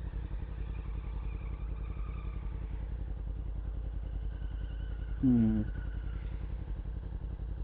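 Yamaha R1's inline-four engine running steadily at low revs, heard muffled through the rider's helmet vlog microphone.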